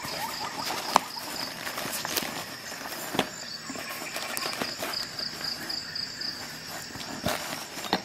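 Nylon MOLLE first aid pouch being handled: fabric rustling and fingers scratching over the webbing, with a few sharp clicks, the loudest about a second in. A faint high-pitched tone pulses steadily underneath.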